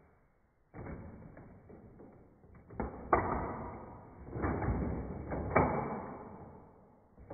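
A few sharp knocks among swells of noise, the loudest about three and five and a half seconds in.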